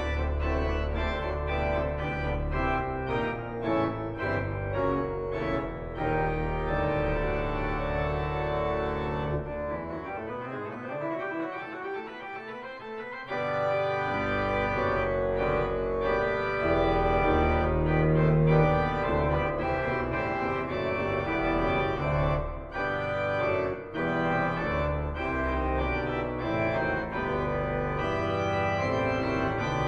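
Organ music playing sustained chords over a deep bass line. The bass drops out for a few seconds about a third of the way in, then comes back in.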